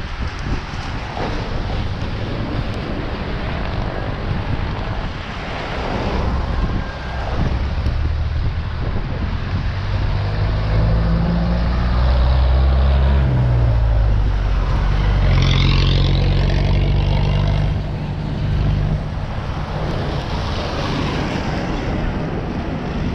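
Traffic heard from a moving bicycle: a steady rush of wind and road noise. From about a third of the way in until near the end, a motor vehicle's engine hums loudly close by, its pitch rising and falling.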